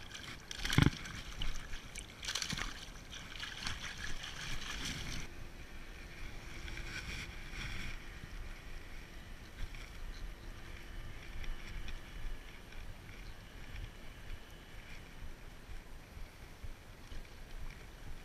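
Water splashing and sloshing as a caught fish is let go by hand at the water's edge, loudest in a sharp slap about a second in. After about five seconds it settles to soft lapping water and light wind.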